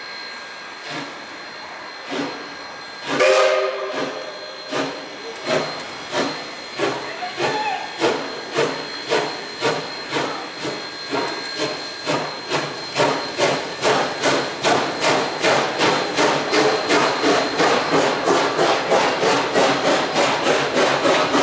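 Queensland Rail BB18¼ class steam locomotive starting away with a train: a short whistle blast about three seconds in, then regular exhaust chuffs that quicken from a little over one to more than two beats a second and grow louder as it gathers speed.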